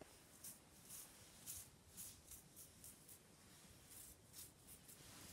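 Faint, repeated scratchy flicks of a finger drawn across the paint-loaded bristles of an old toothbrush, spattering watercolour onto paper.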